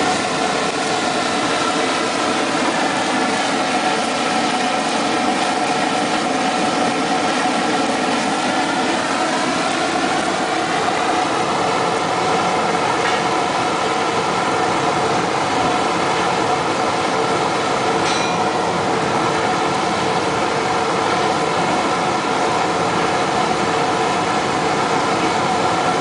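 Diesel-fired melting furnace running at full fire: the burner's blower and flame give a loud, steady roar with a hum of several steady tones on top, wavering slightly in pitch partway through.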